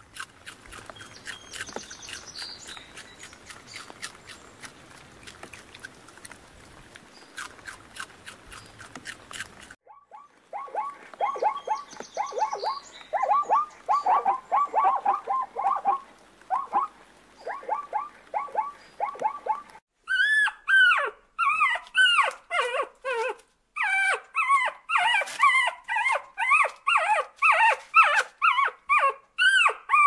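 Animal calls with a dog-like, yapping character. First about ten seconds of faint hiss with scattered clicks. Then rapid runs of short, clipped calls. About twenty seconds in come louder, higher yelping calls, repeated quickly.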